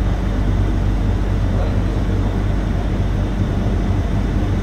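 Gatwick inter-terminal shuttle, a rubber-tyred automated people mover, running along its elevated concrete guideway, heard from inside the cabin: a steady low rumble with a hum.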